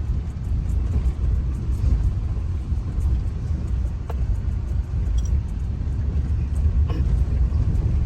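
Steady low road rumble of a car driving, heard from inside the cabin, with a couple of faint clicks.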